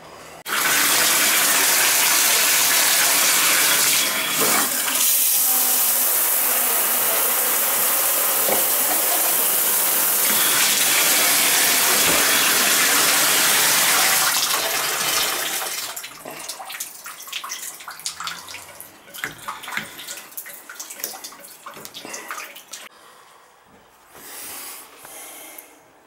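Water running hard from a bathtub spout as a freshly repaired tub/shower valve is tested. The valve is shut off about fifteen seconds in, and the rush stops, leaving scattered drips and splashes from the spout that fade away.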